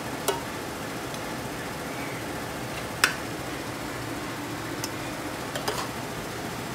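Metal spoon clinking against metal cooking pots as mutton curry is scooped out and spread over the rice: a few sharp clinks, the loudest about three seconds in and two close together near the end. A steady background hiss runs under them.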